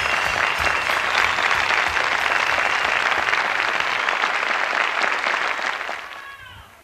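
Studio audience applauding at the end of a song, a dense steady clapping that fades out near the end.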